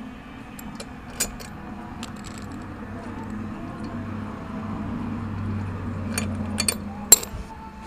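A few sharp metal clicks and clinks of hand tools at work on a spark plug, over a low hum that swells and fades like a passing vehicle.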